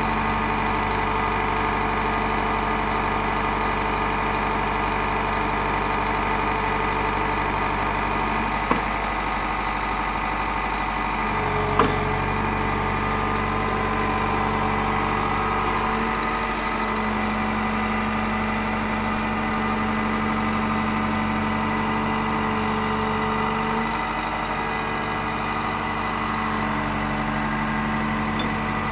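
Excavator's diesel engine idling steadily, its low note shifting about 11 and 16 seconds in. Two short sharp knocks, about 9 and 12 seconds in.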